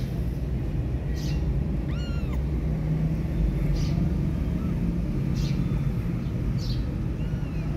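Newborn kitten mewing: one clear rising-and-falling mew about two seconds in and a fainter one near the end, over a steady low rumble.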